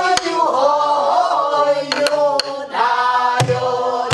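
A woman singing pansori in jungmori rhythm with long bending notes, accompanying herself on a buk barrel drum. Four or five sharp stick strokes on the drum and a low drum boom about three and a half seconds in fall under the singing.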